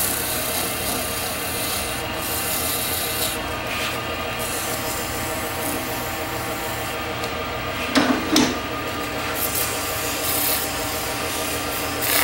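Wood lathe running while 400-grit sandpaper is held against the spinning cocobolo: a steady rubbing hiss over the motor's even hum, with a brief louder scrape about eight seconds in.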